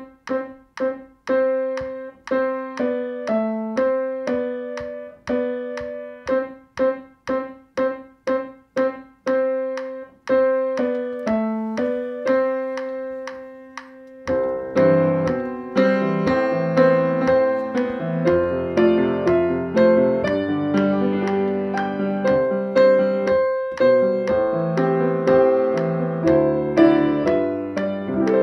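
Grand piano (Steinway & Sons) playing a simple beginner melody in single notes around middle C over a metronome's steady clicks, about two a second. About halfway through, the playing fills out with lower notes and chords.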